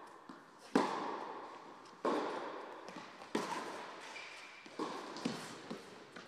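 Tennis rally: sharp pops of the ball struck by rackets and bouncing on the court, about one every second or so, each ringing on in the long echo of a large indoor hall.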